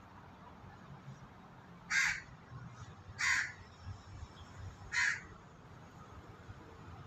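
A crow cawing three times, the caws short and spaced a second or more apart.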